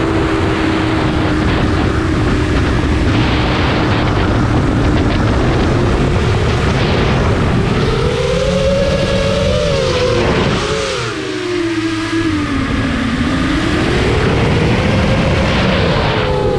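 Four brushless motors (Eachine 2507, 1800 kV) and propellers of an FPV racing quadcopter whining, heard from a camera mounted on the drone. The pitch holds steady at first, then rises about eight seconds in, sinks about thirteen seconds in and climbs again as the throttle changes, over a rush of air on the microphone.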